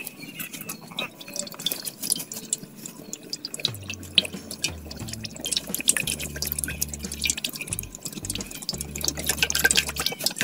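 Cooking oil glugging and splashing as it is poured from a plastic bottle into a metal karahi, a dense run of small irregular splashes.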